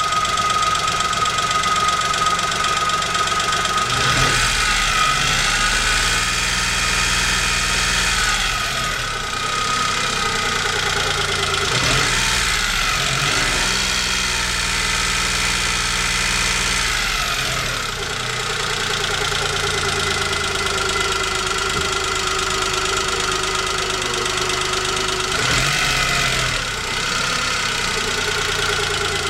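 Chevrolet Spark's 800 cc three-cylinder engine idling, revved up and held for a few seconds twice, then blipped once near the end. The owner asks whether the noise it makes is engine knock.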